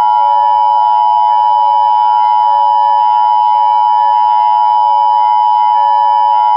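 Emergency Alert System two-tone attention signal: two steady tones sounded together as one loud, unbroken alarm.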